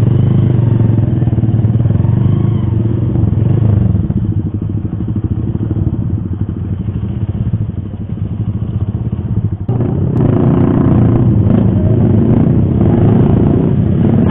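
Sport motorcycle engine running steadily at idle. About ten seconds in it grows louder and rougher.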